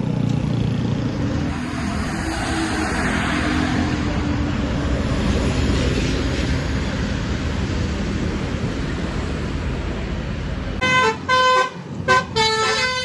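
A bus goes by with loud engine and road noise; about eleven seconds in, a Basuri telolet musical horn plays a tune of short notes that change pitch in steps, with brief breaks between them.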